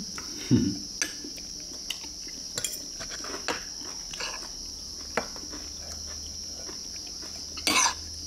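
Cutlery clicking against ceramic bowls and plates, with eating sounds from the diners, scattered as short clicks and one brief louder noise near the end. Under it, insects chirr steadily on one high tone.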